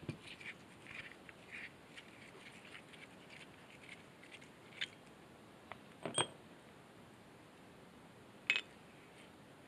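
Screwdriver and small parts working against an electric winch's plastic gearbox housing during disassembly: faint scraping and light clicks, with sharper clicks about five, six and eight and a half seconds in, the last the loudest.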